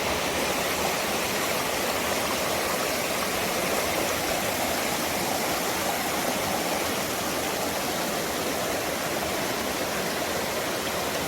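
Valley stream rushing, a steady, even sound of running water.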